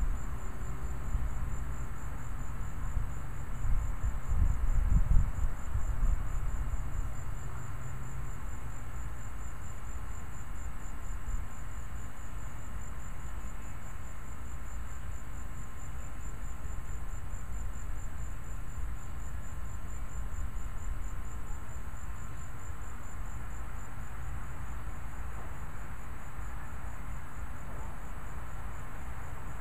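A steady, evenly pulsing high-pitched trill of insects. A low rumble swells under it over the first eight seconds, loudest around four to five seconds in, then fades.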